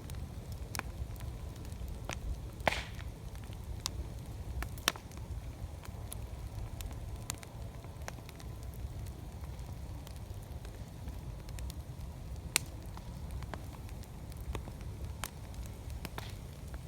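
Wood campfire crackling, with sharp irregular pops over a steady low rumble; the loudest pops come about three, five and twelve seconds in.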